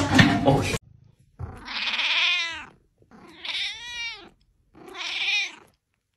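A domestic cat meowing three times, each a long wavering call that sounds like a sheep's bleat. Before the first call, a short loud noisy sound cuts off just under a second in.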